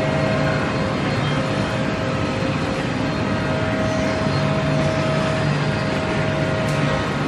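WoodMaster WM-1625R CNC router running: a steady mechanical noise with a held tone over it.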